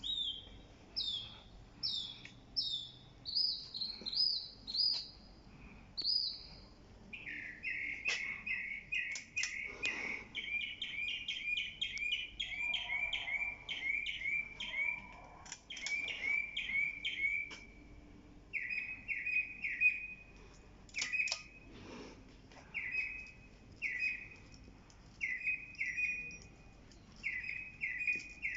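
Birds chirping: a string of short, falling high notes, then from about seven seconds in a fast run of chirps that carries on in short groups.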